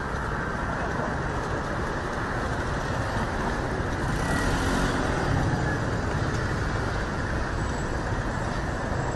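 City street traffic noise at an intersection: a steady drone of passing cars and scooters, swelling slightly with a brief hiss about four to five seconds in.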